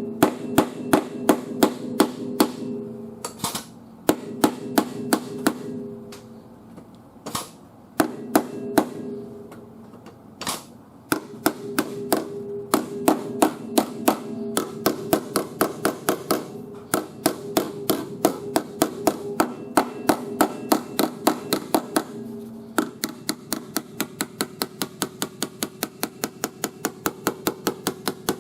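Hammer rapidly striking the steel sheet metal of a car's quarter panel, about four blows a second in runs with short pauses, each blow ringing. This is bodywork hammering to knock the damaged panel back into shape.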